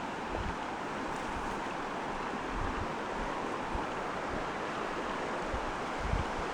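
Steady rushing of flowing river water, with scattered low thumps that grow more frequent near the end.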